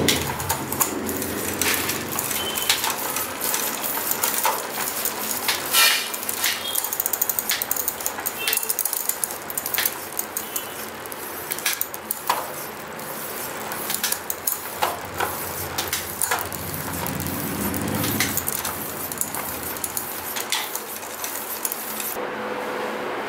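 Bicycle rear wheel spinning freely, its freewheel ratcheting with rapid metallic clicks that come fastest and densest partway through, plus scattered sharper clicks from the chain and sprockets.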